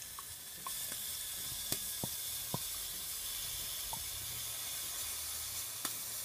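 Chicken pan juices boiling in a pot on the stove: a steady hiss with scattered small pops, the hiss getting louder about a second in.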